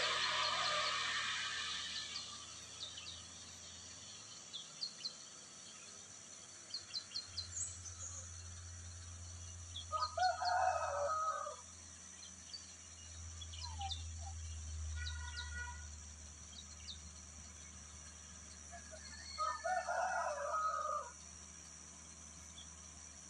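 A rooster crows twice, about ten seconds in and again about twenty seconds in, each crow lasting about a second and a half. Small birds chirp in short high notes throughout, over a faint low engine drone.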